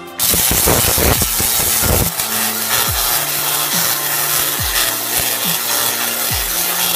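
Homemade 1.4 kW spark-gap Tesla coil firing: a loud, rasping buzz of sparks and arcs that cuts in abruptly about a quarter second in and keeps going. Electronic music with deep descending bass sweeps plays beneath it.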